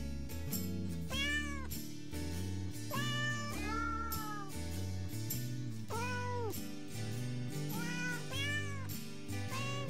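Novelty music in which cat meows, pitched to a tune, sing a melody over a bass and chord accompaniment. The rising-and-falling meows come about once a second.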